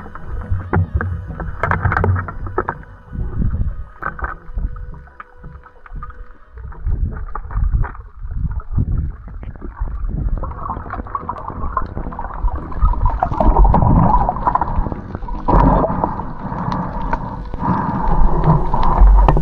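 Underwater water noise picked up by a camera housing: many knocks and clicks over a low rush of moving water as a speared fish is worked off the reef. About halfway through, the rush of water gets louder and steadier as the diver swims upward.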